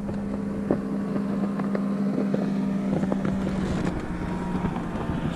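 Motorboat passing by on the lake, its engine a steady drone.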